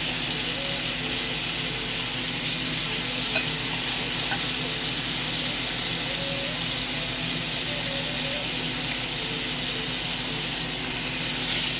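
Banana pieces frying in hot grease and butter in a pan: a steady sizzle with a couple of small pops.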